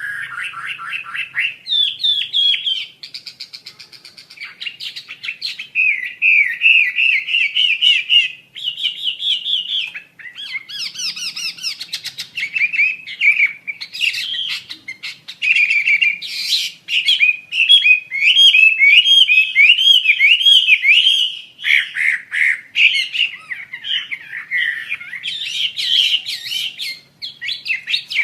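Asian paradise flycatcher singing a long, unbroken run of rapid, varied high chattering notes, mixed with harsh, buzzy calls.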